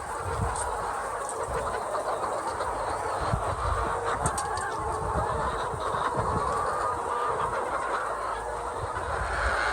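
A large flock of egg-laying hens clucking together in a steady, continuous din, with scattered low thuds.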